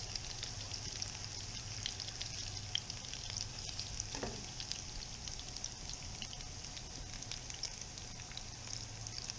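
Breaded snapper fillets sizzling in hot avocado oil with garlic in a frying pan, a steady hiss with small crackling pops as more pieces are laid in. A steady low hum runs underneath.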